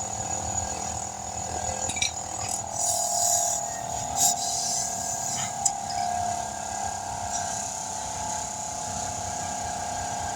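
Steady machine hum, with a few short hisses of escaping air and clicks in the first half, while a tire bead is being seated with compressed air.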